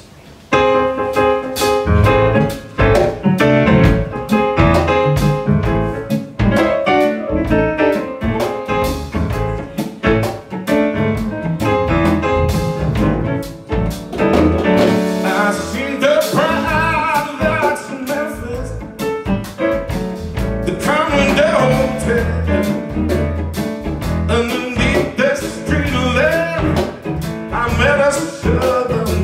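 Live band playing a bluesy rock groove on keyboards, guitar, bass and drums, starting abruptly about half a second in. A man's singing voice joins in around halfway through.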